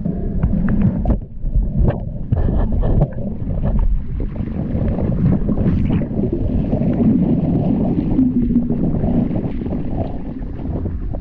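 Water sloshing and rumbling close to the microphone, with scattered knocks and splashes.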